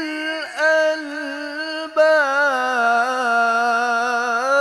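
Male Quran reciter (qari) chanting in melodic tilawah style, drawing out the phrase "li-uli al-albab" in long ornamented held notes. The voice breaks off for a moment about two seconds in, then comes back louder on a sustained note.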